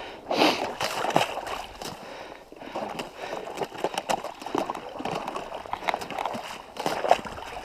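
A person wading through shallow lake water, with a splash and slosh at each stride.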